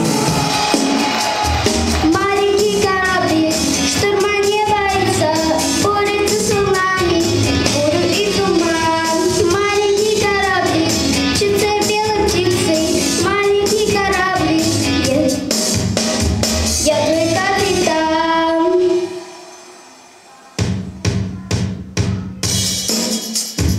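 A girl singing into a microphone over a recorded backing track with a drum beat. About nineteen seconds in, the music and voice break off for a moment, then the beat comes back alone before her voice returns.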